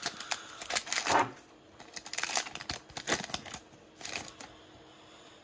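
Pokémon trading cards and a foil booster wrapper rustling and clicking in the hands as a freshly opened pack is sorted. The rustles come in a cluster of crisp ones in the first second or so, then a few soft ones spaced out.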